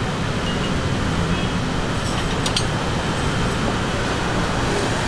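Steady noisy street-stall background din, with a few short clicks about halfway through.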